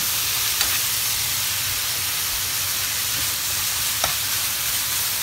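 Spring-roll filling of minced meat and shredded carrot sizzling steadily in a frying pan as a slotted metal spoon stirs it, with a couple of light scrapes of the spoon against the pan.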